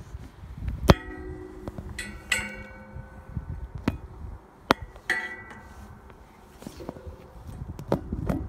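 Metal playground railings and deck being knocked: about eight sharp clinks at uneven intervals, several of them ringing on briefly with a clear metallic tone, over a low handling rumble.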